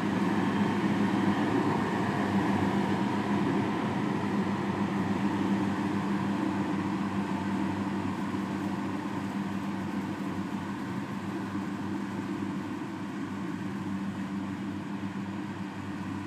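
Engine of a farm machine running steadily with a constant hum, easing slightly quieter in the second half.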